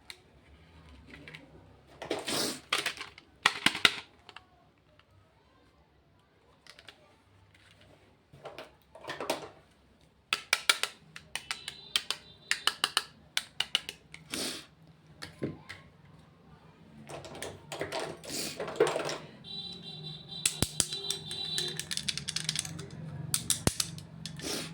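Makeup packaging and products handled close to the microphone: clusters of sharp taps and clicks on plastic cases mixed with crinkling rustles of wrapping, in bursts with short quiet gaps between.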